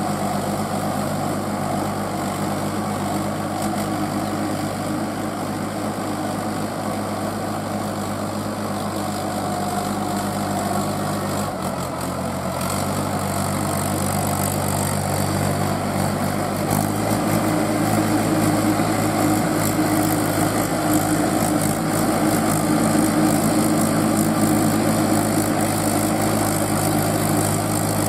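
Mahindra 475 DI tractor's four-cylinder diesel engine running steadily as the cage-wheeled tractor pulls through deep, wet paddy mud. The engine note shifts briefly about twelve seconds in and is louder from about seventeen seconds on.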